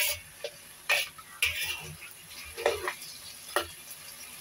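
Metal spatula scraping against a wok as chicken feet are stir-fried, about six irregular strokes over a steady sizzle.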